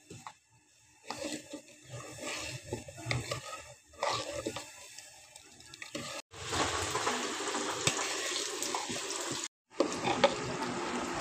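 Steel ladle stirring milk and rice in a steel pot, scraping and clinking against the metal. From about six seconds in, the noise becomes a steadier hiss.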